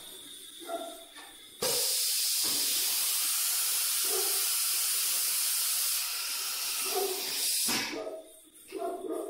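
A loud, steady hiss that starts suddenly about a second and a half in and cuts off just as suddenly about six seconds later.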